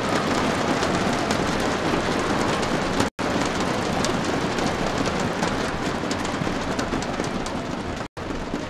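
Crowd applauding, a dense steady clatter of many hands clapping. The sound cuts out for a split second twice, about three seconds in and near the end.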